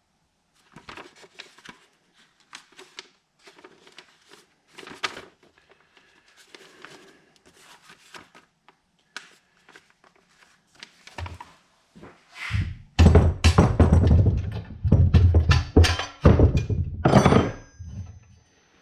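Parts of a drill press being handled during assembly: scattered light knocks and clatter, then a run of loud, heavy thunks in the last few seconds.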